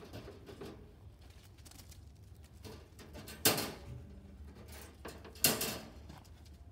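Wire rabbit transport cage clanking twice, about two seconds apart, each a sharp metal hit with a brief rattle after it, as its compartment hatches are worked while live rabbits are taken out one by one. Faint scuffling in between.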